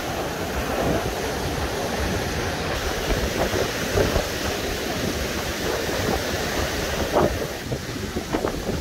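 Steady rushing of Baltic Sea surf and wind, with wind rumbling on the microphone.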